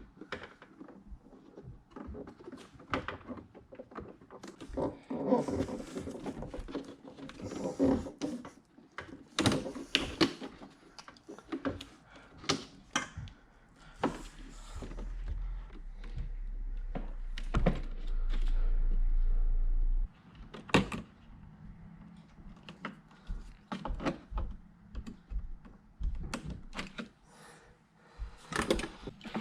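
Irregular plastic clicks and knocks as a car door's trim panel is handled and its wiring connectors are unclipped by pressing their tabs. A steady low hum runs for about six seconds near the middle and is the loudest sound.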